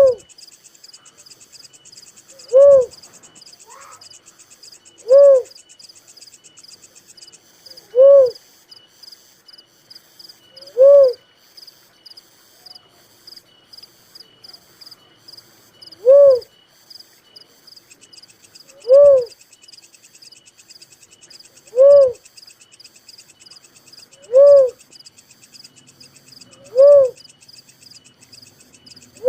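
A dove gives a single hooting note, rising then falling in pitch, about ten times at intervals of two and a half to three seconds, with one longer pause. Insects trill steadily behind it in a fast, high pulsing.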